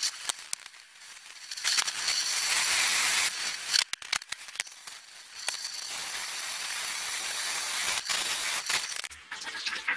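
Hissing from a tin can of paraffin candles being melted down over heat, with scattered sharp clicks and crackles. The hiss swells twice, about two seconds in and again from about the middle on.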